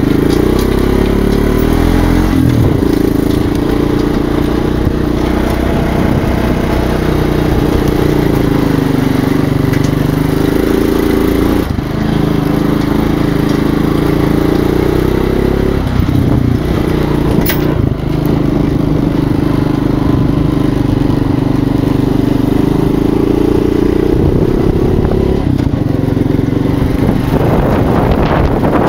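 Engine of a small vehicle running while driving along a dirt track. Its pitch rises and falls with speed and dips briefly twice.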